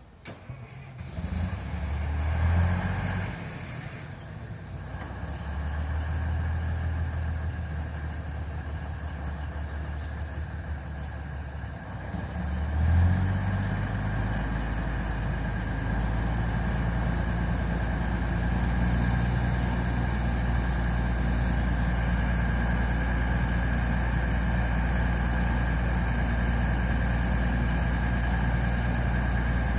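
Alishan Forest Railway DL-40 diesel locomotive's engine starting: it fires about a second in and runs up unevenly, surges again about 13 seconds in, then settles into a steady idle with a low rumble and a steady high whine.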